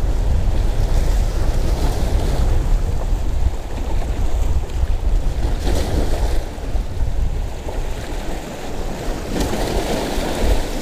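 Wind buffeting the microphone in a heavy low rumble, with small waves splashing against the stones of a rock jetty.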